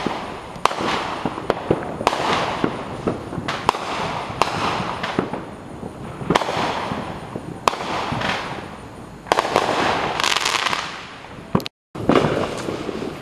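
Backyard aerial fireworks going off: sharp pops and bangs about once a second, with hissing and crackling between them that swells louder about ten seconds in. The sound cuts out for an instant near the end.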